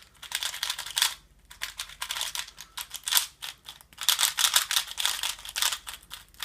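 Polymer-coated Valk M magnetic 3x3 speedcube being turned quickly: rapid runs of plastic clicks in three bursts with short pauses between them.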